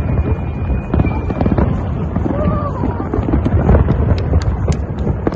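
Fireworks display going off in a dense barrage: many overlapping bangs and booms, with a few sharp cracks near the end.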